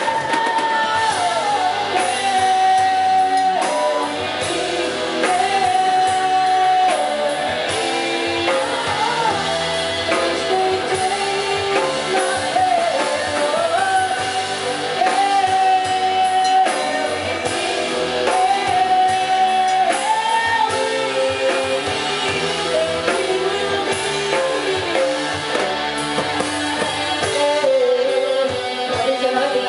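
Live rock band playing a ballad: electric guitar, drum kit and keyboard, with a sung melody line held and bent over the band.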